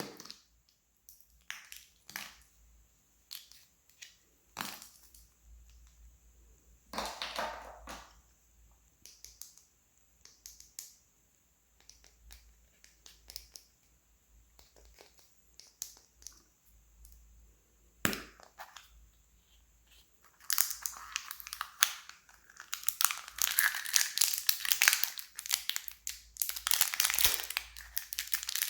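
Surprise-egg and candy packaging being handled and unwrapped. Scattered clicks and rustles, then a sharp crack about 18 seconds in. From about 20 seconds on, continuous crinkling of wrappers.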